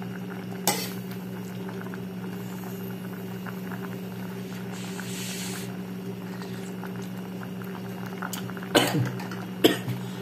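A pot of ramen broth boiling on the stove, bubbling steadily over a low hum. There is a sharp click about a second in, and two sudden louder sounds near the end.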